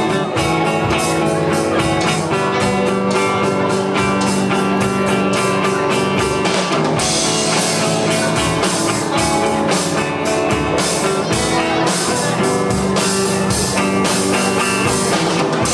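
Live rock band playing an instrumental passage without vocals: guitar over a drum kit keeping a steady beat.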